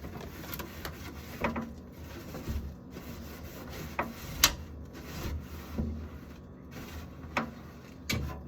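Paper towel rubbing and wiping a plastic fridge drawer in irregular scrubbing strokes, with occasional sharp knocks of the drawer, the loudest about four and a half seconds in.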